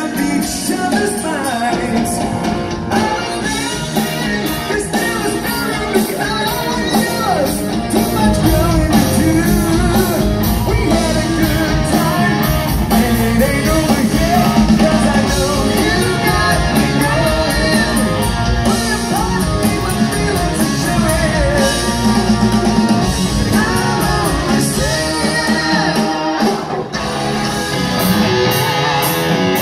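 Live rock band playing over a PA system, a singer's lead vocal over guitars, bass and drums.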